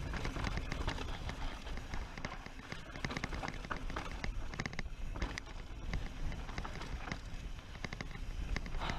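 Mountain bike rattling down a rough, rocky trail: a dense, irregular clatter of chain, frame and tyres hitting stones and ruts, over a steady low rumble of wind on the microphone.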